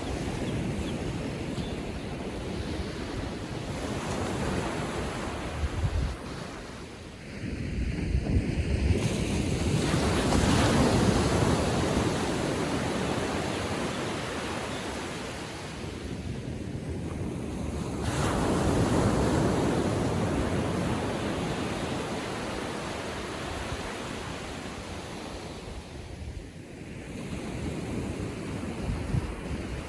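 Calm-sea surf: small waves breaking and washing up the shore, swelling about every eight seconds. Wind rumbles on the microphone now and then.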